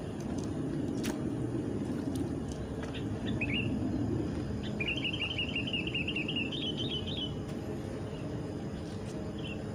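A small bird gives a short chirp, then a fast chirping trill lasting about two seconds near the middle, over a steady low rumble.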